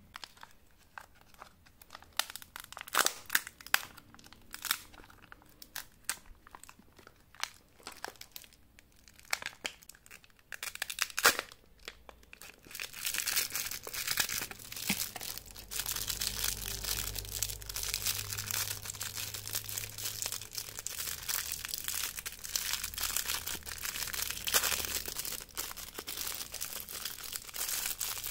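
Foil wrapper of a chocolate surprise egg being crinkled and torn open by hand: scattered sharp crinkles at first, then continuous crinkling from about halfway through as the foil is peeled away.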